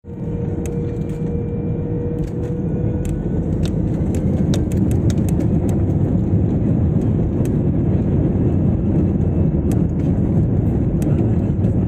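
Jet airliner's engines and wheels heard from inside the cabin as it rolls on the ground, a steady low rumble that builds a little over the first few seconds, with scattered small clicks and rattles.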